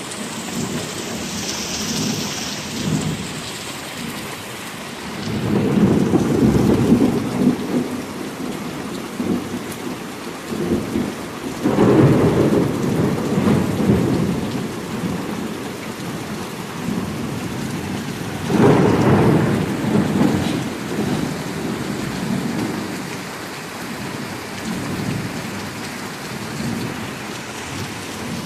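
Heavy rain falling steadily, with thunder rumbling through it in three long rolls: about five seconds in, about twelve seconds in and about nineteen seconds in.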